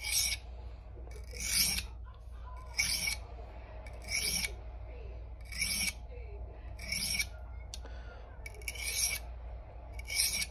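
Kitchen knife blade stroked across the coarse side of a sharpening stone oiled with mineral oil. It makes eight even scrapes, one about every second and a half, as the dull edge is ground sharp.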